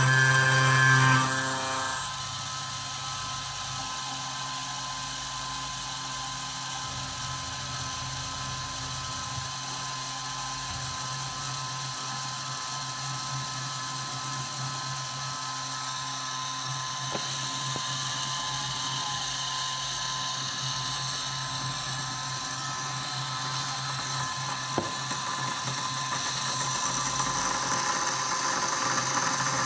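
CNC milling machine spindle running as it mills metal: a steady mechanical whine with a high hiss. It is louder for the first second and a half, drops abruptly, then slowly grows louder again.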